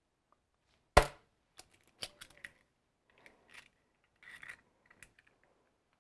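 An egg cracked with one sharp knock about a second in, followed by a scatter of small clicks and crackles as the shell is pulled apart over the mixing bowl.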